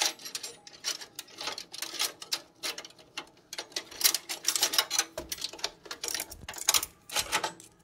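Quick, irregular clicking and clattering of small hard plastic and metal parts: PC cables and connectors being handled during a build.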